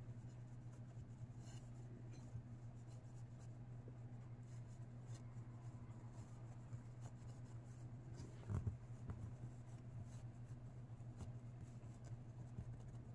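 Faint rustling and scratching of thin cotton bandana fabric being handled, with scissor tips pushing its corners out from inside, over a steady low hum. A slightly louder brief rub comes about eight and a half seconds in.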